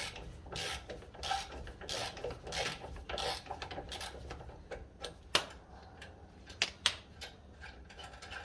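Hand ratchet being worked back and forth to undo a lower ball joint castle nut: even rasping strokes, a little under two a second, for about three and a half seconds. They are followed by a few sharp metallic clinks.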